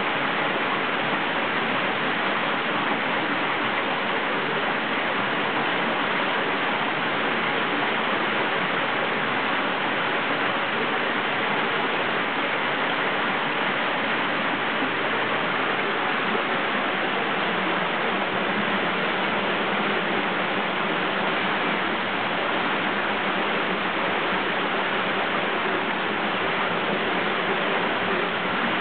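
Steady rush of running water pouring into a koi pond.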